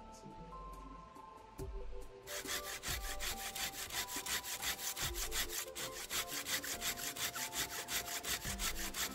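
Hand saw cutting through wood in quick, even strokes, several a second, starting about two seconds in, over background music.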